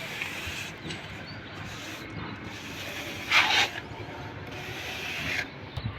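Rough scraping and rubbing on a hard surface, with one louder scrape about three and a half seconds in.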